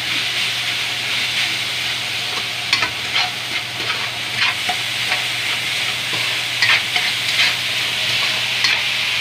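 Metal spatula stirring and scraping grated coconut residue around a dry aluminium wok, with irregular scrapes against the metal over a steady sizzle as the coconut toasts.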